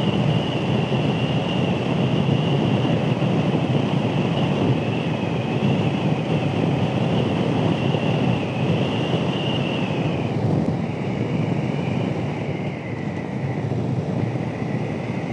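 Motorcycle on the move: a steady rush of wind on the microphone over engine and road noise, with a thin high whine that wavers and drops a little in pitch about ten seconds in.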